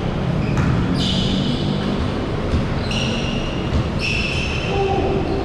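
Basketball pickup game in a large echoing gym: basketballs bouncing on the hardwood floor, with several short high sneaker squeaks over a steady low hum of the hall.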